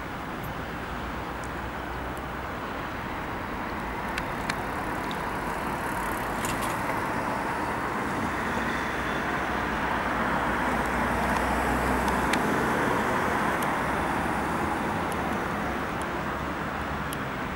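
Airbus A340-200's four CFM56 jet engines, a steady rushing noise that swells to its loudest about twelve seconds in and then eases off.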